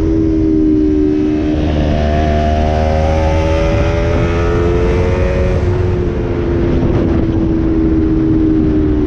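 Sport motorcycle engine running at speed under wind and road rush, its revs climbing for a few seconds and then easing off as the throttle is rolled back.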